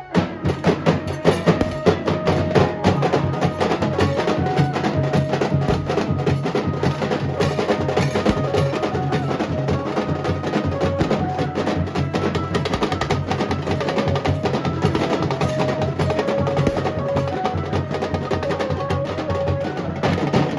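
Nasik dhol ensemble playing: barrel dhols and tasha beating a dense, fast rhythm, with a held, stepping melody line above it. The drumming comes back in loudly right at the start after a brief dip.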